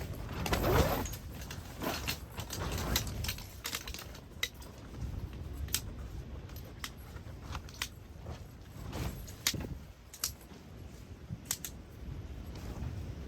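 Camping gear being handled and set out: scattered clinks, clicks and short rattles of small hard objects, with low rumbling underneath.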